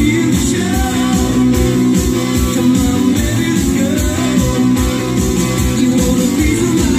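Music with guitar and a steady beat, played back from a cassette on a Harman Kardon CD491 deck and heard through loudspeakers in the room.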